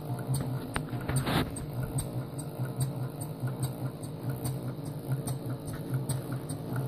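Scale model duplex Corliss tandem compound steam engine running steadily. Its valve gear and linkages tick several times a second over a low hum that pulses in time with the engine.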